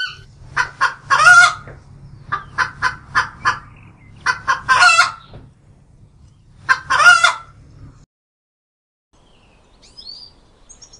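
Domestic chickens clucking: runs of short clucks broken by three longer, louder calls, over a low steady hum. The sound cuts off suddenly about eight seconds in, and faint small-bird chirps follow near the end.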